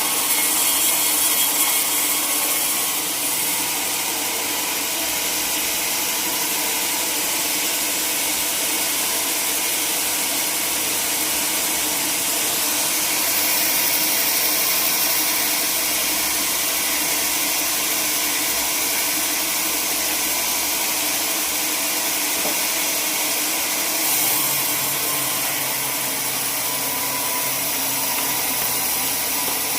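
Sawmill saw cutting through a log, running steadily as one continuous high hiss with a machine hum beneath it.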